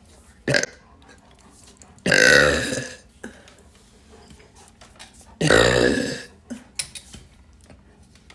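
A woman burping: two long burps of about a second each, the first about two seconds in and the second about three seconds later.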